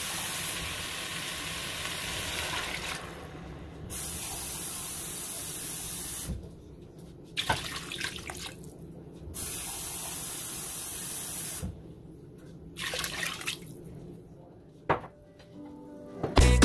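Water poured from a mug into a hot stainless steel pot of chicken pieces, splashing, with stretches of steady hiss that cut in and out abruptly several times.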